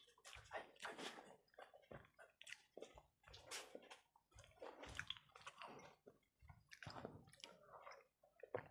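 Close-miked chewing of a mouthful of rice and egg curry, in irregular soft smacks and crunches with short pauses between.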